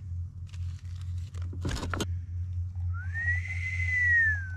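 Paper rustles and light clicks as a drip-coffee bag is opened and hooked over an enamel mug, over a steady low hum. Near the end, hot water is poured from a Jetboil cup into the bag, with a whistle-like tone that rises, holds and falls away.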